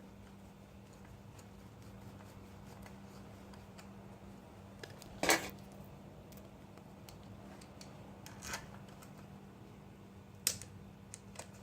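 A few sharp metallic clicks and clinks of a hand tool working the bolts of a small motorized-bike engine's aluminum cover, the loudest about five seconds in, over a steady low hum.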